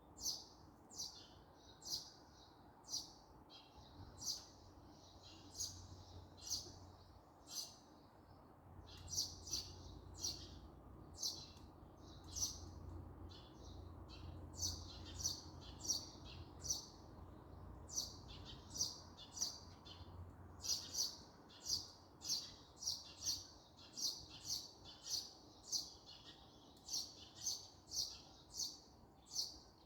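A small songbird calling over and over, a short sharp chirp repeated roughly once or twice a second, with a low steady rumble underneath through much of the middle.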